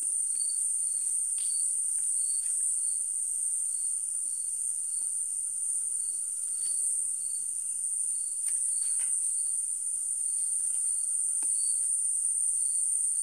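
Night insect chorus: crickets trilling steadily at a high pitch, with a second, lower chirp repeating a couple of times a second and a few faint clicks.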